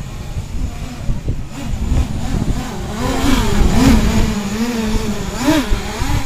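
7-inch FPV quadcopter's motors and propellers whining, the pitch rising and falling with the throttle as it flies in acro mode; it grows louder about halfway through as it passes close, with a quick throttle punch near the end.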